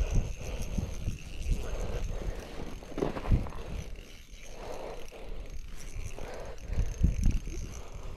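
Low rumbling and scuffing, with irregular knocks, from wind and a jacket sleeve rubbing against a body-worn microphone while a spinning rod is handled over an ice-fishing hole.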